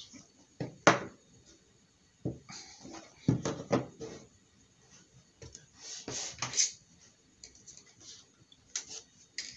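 Cardboard phone boxes handled on a desk: scattered knocks as the boxes are set down and short scraping rustles of cardboard sliding, with a few small clicks near the end.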